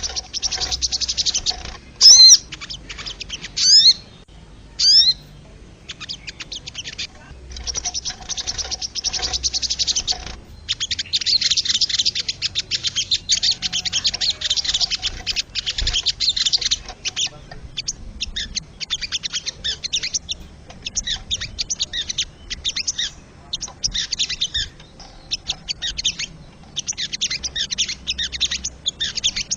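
Sogon bird calling: bursts of rapid, high chattering trills, with three loud sweeping whistled notes in the first five seconds and a long dense run of chatter in the middle.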